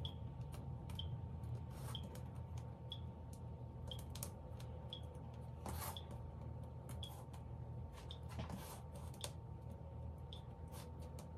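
Fingers pressing and tucking pastry dough into a fluted metal tart tin: faint, scattered taps and soft rustles over a steady low hum. A faint high tick sounds about once a second throughout.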